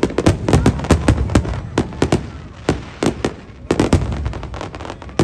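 Aerial fireworks bursting in rapid volleys, many sharp bangs a second over a low rumble, the bangs crowded together for the first couple of seconds and more spaced out after that.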